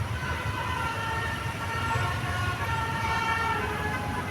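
Bus 'telolet' multi-tone horn (Basuri type) playing a stepping melody, its notes changing about every half second to a second, over the low rumble of the bus engine.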